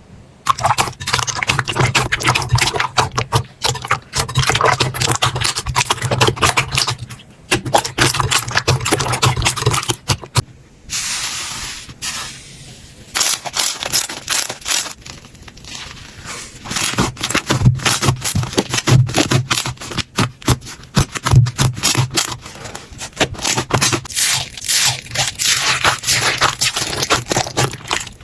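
Slime being squeezed and worked by hand, giving a dense run of crackling, popping clicks. About eleven seconds in it turns briefly to a smoother sticky hiss before the crackling picks up again.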